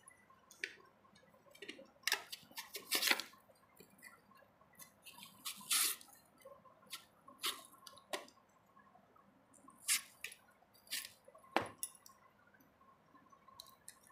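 Raw potato being pushed down a handheld multi-blade chips slicer, each stroke a short wet scrape as the blades cut through. About a dozen strokes at an uneven pace, bunched around the second to fourth seconds and spread more thinly after.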